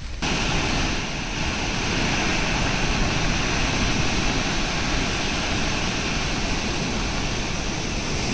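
Floodwater gushing out through the open spillway gates of the Kadem dam: a steady, dense rush of churning water that cuts in abruptly just after the start. The gates are lifted to release flood inflow downstream.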